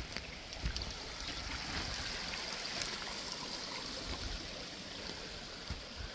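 Small creek running, a steady even rush and trickle of flowing water.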